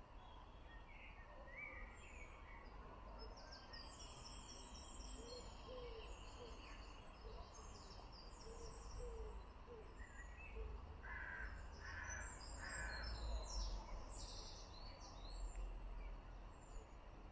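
Birds calling in riverside trees: high chirps throughout, a run of short low notes around the middle, and three stronger calls a little later, over a steady low background rumble.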